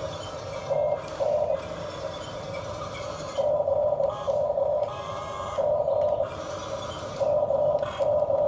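Huina 1550 RC excavator's motors and gears whirring in short bursts, starting and stopping about six times as the machine is worked, over a quieter steady hum.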